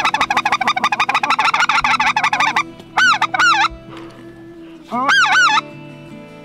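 Hand-blown goose call: a fast string of short clucking notes for about two and a half seconds, then spaced groups of two-note honks, the last one near the end.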